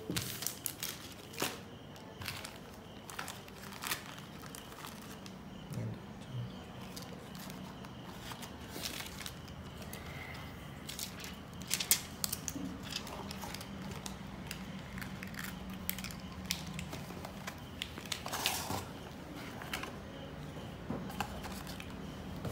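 Hands handling a smartphone and its plastic packaging: scattered clicks, taps and crinkling of plastic wrap.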